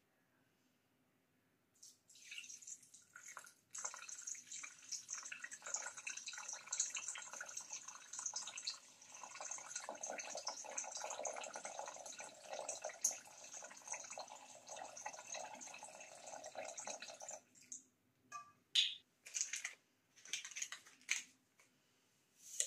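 Liquid being poured steadily for about fifteen seconds, stopping abruptly, followed by a few short clicks and knocks.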